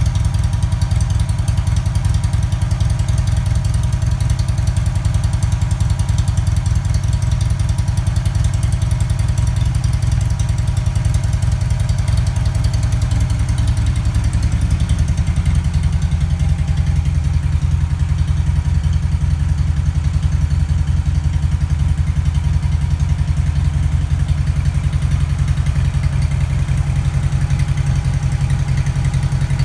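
BMW flat-twin (boxer) motorcycle engine idling steadily, its note changing slightly about halfway through.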